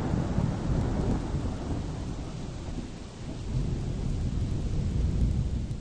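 Thunderstorm: a heavy rumble of thunder over a hiss of rain, swelling twice and starting to fade near the end.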